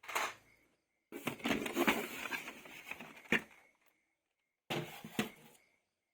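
Handling noise from toy vehicles being unboxed: rustling and clattering of plastic in three bursts, the longest in the middle with a sharp click near its end.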